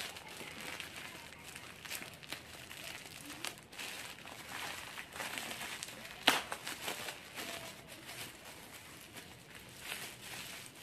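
Thin plastic mailer bag crinkling and rustling as it is pulled open by hand, with one sharp snap a little past halfway.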